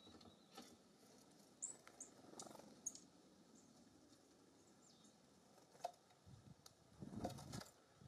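A few faint, short, high bird chirps, then near the end a louder low flutter and rattle as a California Scrub-Jay flies in and lands on a wire suet-cage feeder.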